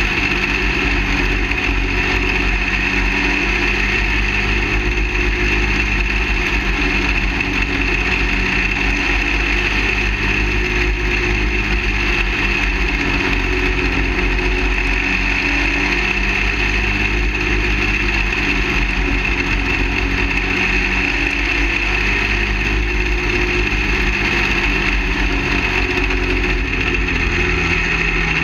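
Go-kart engine of a half-scale dirt late model running at a fairly steady speed as the car laps the track, heard from a camera mounted on the car's roof.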